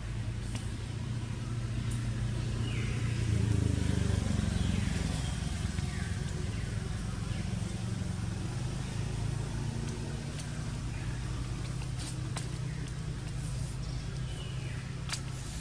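Low engine hum of a passing motor vehicle that swells to its loudest a few seconds in and then fades back to a steady drone. Short high falling chirps come every second or two over it, with a couple of sharp clicks near the end.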